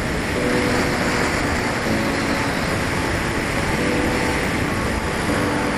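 Steady rushing airflow noise on an RC plane's onboard camera during its landing approach, with faint background music notes coming and going.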